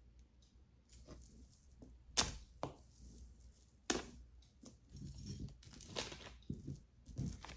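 Jewelry being handled: beads and a metal clasp clicking and clinking against each other, with light rustling. The sharpest clicks come about two seconds in and again about four seconds in.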